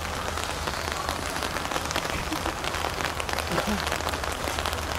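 Steady rain falling: an even hiss made of many small drop ticks.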